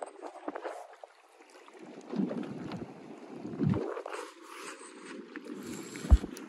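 Wind gusting on the microphone and water moving against a small boat's hull, with scattered handling clicks and one sharp knock about six seconds in.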